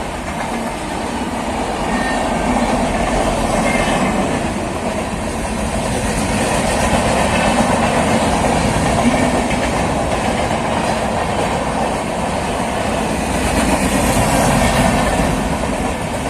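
Local passenger train running on the rails: a loud, steady rumble and rattle of the moving coaches.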